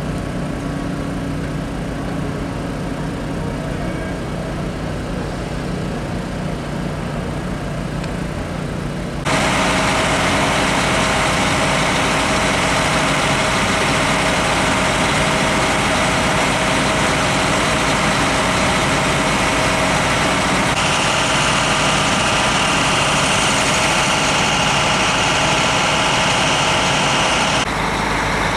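Diesel engines of fire apparatus running at idle as the trucks move slowly past. The sound steps up abruptly in level about nine seconds in and shifts again twice later on.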